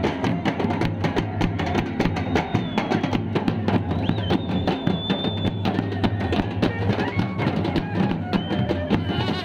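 Himachali folk nati music played live: drums beaten in a fast, dense rhythm, with a long brass horn blown and held high wind notes over the drumming.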